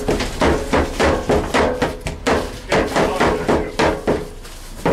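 Cleaver chopping barbecued meat on a wooden board, a rapid run of sharp chops about three to four a second with a brief pause near the end.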